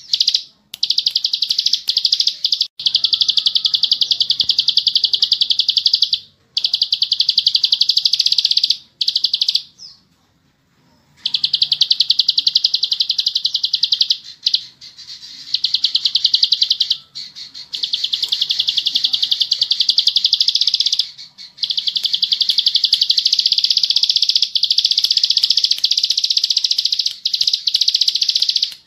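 Ciblek sawah (plain prinia) singing its long, fast 'ngebren' song: high, rapid buzzy trills held for several seconds at a time, broken by short pauses and a longer gap about ten seconds in.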